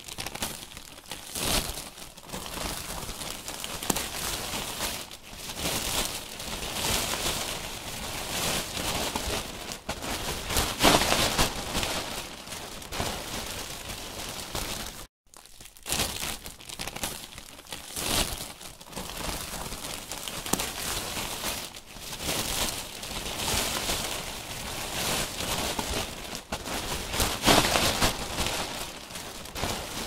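Plastic garbage bag being handled, rustling and crinkling continuously with louder crumples here and there. It breaks off for a moment about halfway, then starts again.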